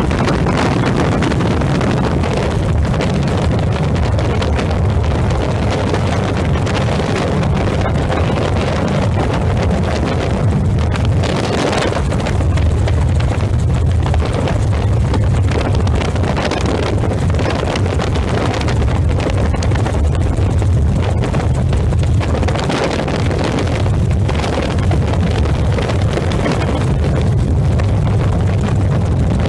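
Helicopter in flight: a loud, steady low engine and rotor drone, with wind noise on the microphone swelling now and then.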